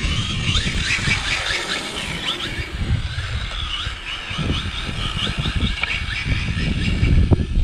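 Brushless electric motor of a 4WD RC drift car whining, its pitch rising and falling again and again with short bursts of throttle. Wind rumbles on the microphone underneath.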